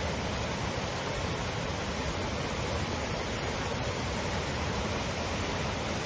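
Godavari River in flood, fast floodwater rushing in a steady, even wash of sound.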